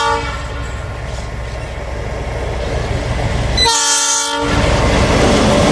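ALCO RSD-16 diesel locomotive sounding its multi-note air horn: the tail of one blast right at the start and a second short blast about four seconds in. Under the horn runs the steady rumble of its V16 diesel engine, growing louder with the rail noise as the train comes closer.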